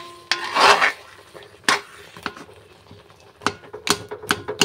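A metal spoon stirring and scraping thick boroi (Indian jujube) pickle in a wok. There is a loud scrape in the first second and a sharp click a little later, then light clicks of the spoon against the pan about three times a second near the end.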